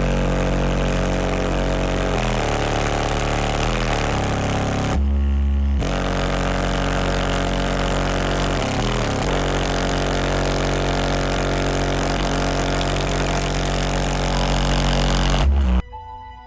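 Sound Qubed HDC4 12-inch car subwoofer driven hard with a folded, half-detached cone, playing loud sustained bass tones that change pitch every second or two. It cuts off suddenly near the end, and quieter background music comes in.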